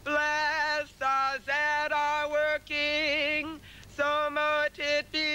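A woman singing a slow chant solo, in short phrases of held notes that waver, with brief pauses between phrases.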